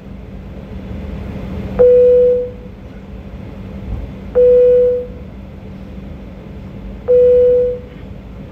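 An electronic beep tone sounds three times, each beep a little under a second long, about every two and a half seconds. Under it runs a steady low hum.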